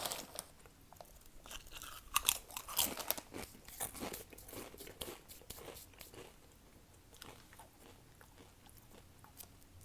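Doritos Cool Ranch tortilla chips being crunched and chewed close to the microphone, in quick sharp crunches that thin out to quieter chewing after about six seconds.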